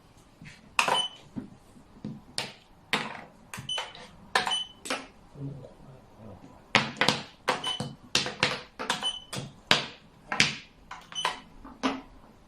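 Xiangqi pieces clacked down onto the board in quick succession, about twenty sharp clacks, some with a brief ring, as moves are made in rapid play.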